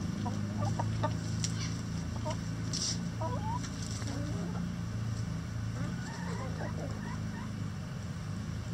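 Backyard laying hens clucking softly now and then as they forage, with occasional sharp clicks, over a steady low hum.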